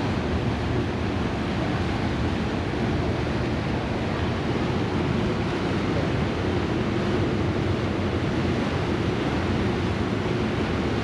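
Steady drone of a car ferry under way, its engines humming beneath a rush of wind and water, with wind buffeting the microphone.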